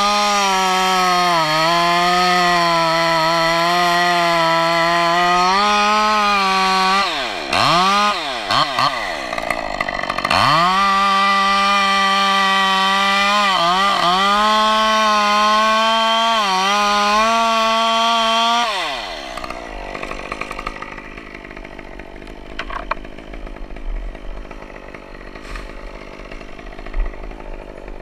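Gas chainsaw running at high revs, cutting into a pine trunk; the engine note sags and recovers a few times as the chain bites. About two-thirds of the way through the revs fall away and the saw goes quiet.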